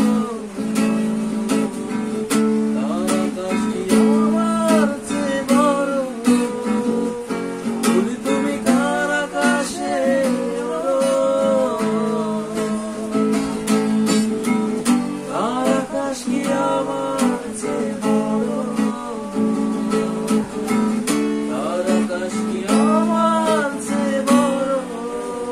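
A man singing a slow, heartfelt song over an acoustic guitar strummed steadily, the voice coming in long phrases with short gaps between them.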